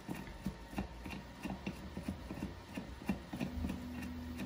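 Small clicks and rubbing as nitrile-gloved hands turn and pull a plastic thumb knob off its threaded shaft on a resin printer vat. A low steady hum comes in about three and a half seconds in.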